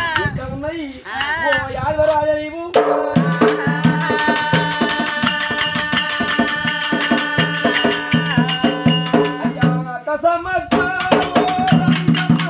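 Oggu katha folk ballad music: a wavering sung phrase, then about three seconds in a held chord over fast drumming and jingling percussion.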